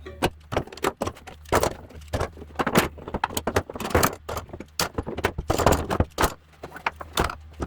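Woodworking clamps being loosened and pulled off a glued wooden box: a quick, irregular run of metallic clicks, rattles and clatter.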